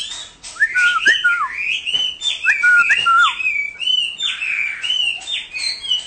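Chinese hwamei singing a rapid, varied song of loud whistled notes that slide up and down, some phrases repeated several times over.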